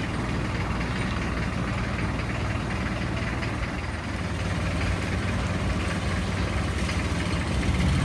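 Long-tail canal boat's engine running steadily, a low drone heard from on board, getting a little louder near the end.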